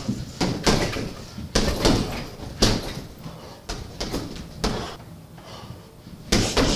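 Punches landing on a heavy bag, each a dull thud with a sharp "shh" exhale from the boxer, coming irregularly about one every half second to a second, with a short pause near the end.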